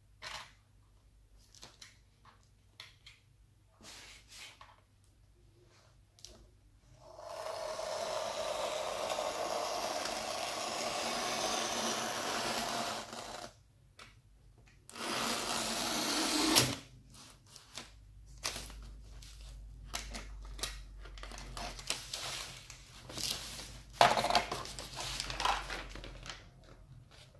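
A steady whirring runs for about six seconds, starting about seven seconds in, with a shorter swell of the same kind soon after. Near the end a thin plastic sheet crinkles and rustles as it is handled.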